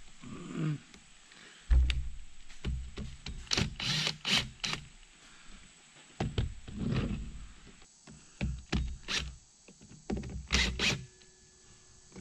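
Cordless tools being handled and set down on a fiberglass boat deck while a cable deck seal is screwed down: a heavy thump just under two seconds in, then clusters of short knocks and clicks.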